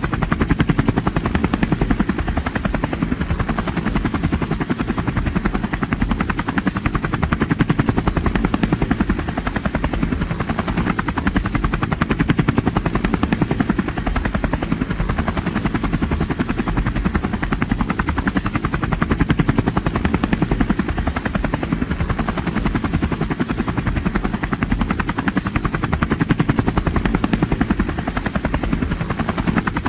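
Helicopter in flight heard from inside the cabin: a steady, dense rotor and turbine rumble with a fast, even rotor beat and a broad hiss above it, unchanging throughout.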